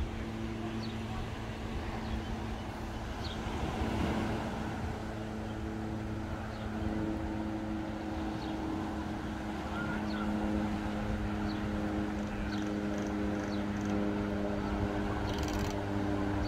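A steady engine drone with an even, unchanging pitch over a low rumble, growing a little louder partway through. Small birds chirp briefly now and then.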